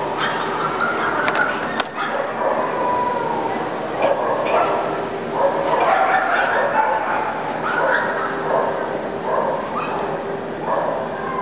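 Dogs barking and yipping on and off in many short calls, over a steady background din.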